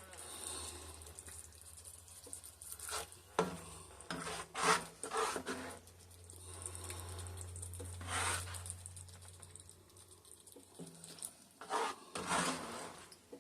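Serving spoon scraping and knocking against a pot and plate as stroganoff and gravy are spooned out, in scattered short strokes over a low steady hum.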